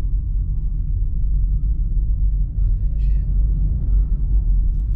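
Steady low rumble of a car driving, the engine and road noise heard from inside the moving car's cabin.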